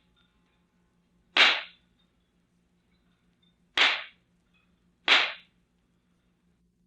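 Shooting-gallery gun firing three single shots, spaced irregularly, each a sharp crack with a short fade.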